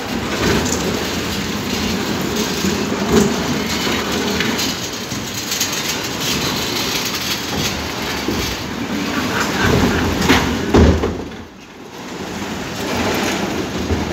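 Hollow plastic road barriers scraping and knocking as they are dragged across the street and stacked, over a steady rough street noise, with louder knocks about three seconds in and again just before eleven seconds.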